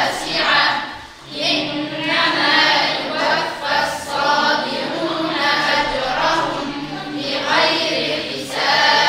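A group of children reciting the Quran aloud in unison, in a chanted, melodic style. They pause briefly for breath about a second in, then carry on.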